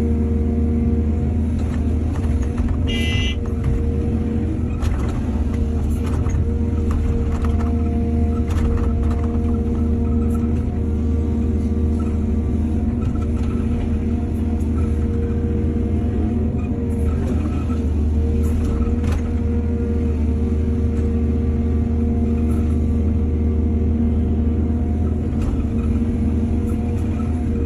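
Excavator's diesel engine running at a steady speed under work, with scattered knocks and clanks. A short high squeal sounds about three seconds in.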